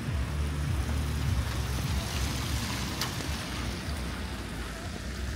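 Traffic on a wet, slushy street: tyre hiss from a passing car that swells about two seconds in and fades, over a low rumble.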